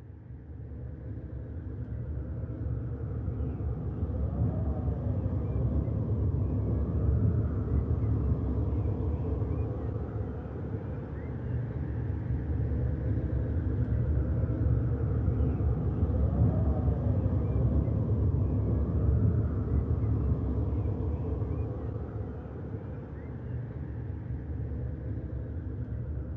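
Background ambience: a steady low rumble that fades in over the first couple of seconds, with slow rising-and-falling whistling tones drifting over it.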